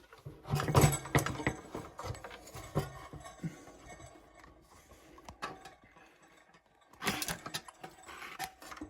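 Handling noise: scattered clicks, knocks and light rattles, in a busier spell about a second in and another around seven seconds in, quieter between.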